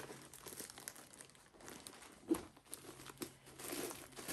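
Plastic bag crinkling and rustling in irregular strokes as a rolled diamond-painting canvas is worked into it, with one sharper crackle a little past halfway.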